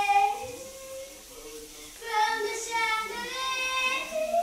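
A girl singing in the shower, heard through the closed bathroom door. The melody wavers, drops away for about a second, then comes back and ends on a long held note.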